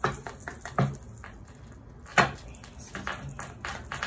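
A deck of tarot cards being shuffled by hand: a run of short card clicks and flicks at uneven spacing, with one sharper knock about two seconds in.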